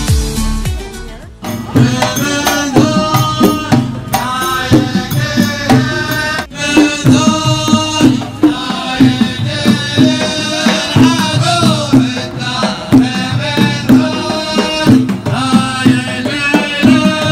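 Live ardah-style folk performance: a group of men singing together over steadily beating frame drums. In the first second or so, acoustic-guitar background music plays before a sudden cut to the live sound.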